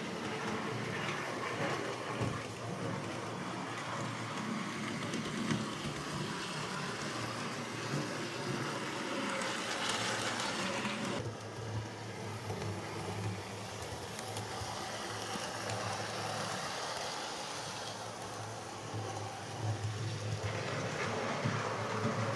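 Model diesel train running on the layout's track: a steady motor hum, louder in the second half, with the rattle of wheels on the rails.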